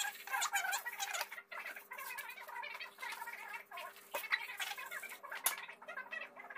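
Continuous bird-like chirping and chattering over a faint steady hum, with a few short sharp scrapes as a knife scores a whole fish on aluminium foil.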